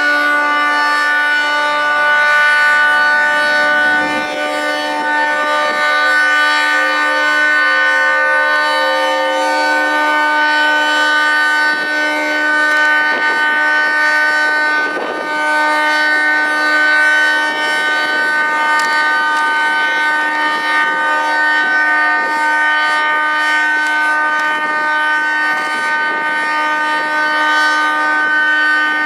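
Federal Signal 3T22 three-tone civil defense siren sounding a steady chord at full speed: the Alert signal, its pitch holding level rather than wavering.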